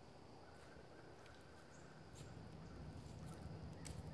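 Near silence: faint woodland ambience with a few soft ticks.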